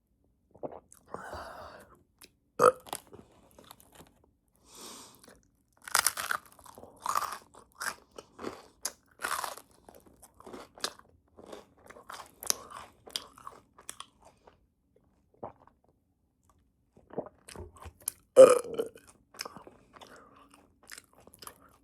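A person biting into and chewing a crunchy bagel spread with cream cheese, with crisp crunches. There is a sharp bite a few seconds in, a dense run of crunching chews in the middle, and the loudest crunch near the end.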